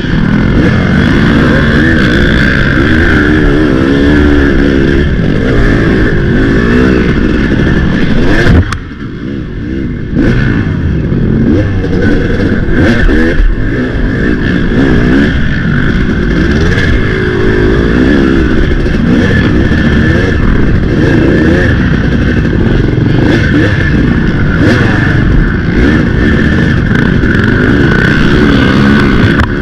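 An off-road race engine running hard through cross-country terrain, its pitch rising and falling constantly with the throttle. About nine seconds in, the throttle briefly closes and the sound drops for a second before picking up again.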